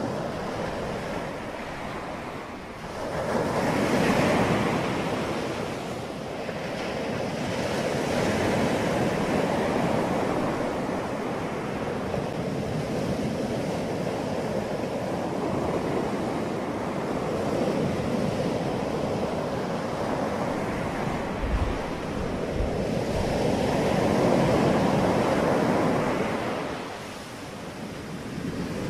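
Rushing wind noise on the microphone, swelling and easing every few seconds.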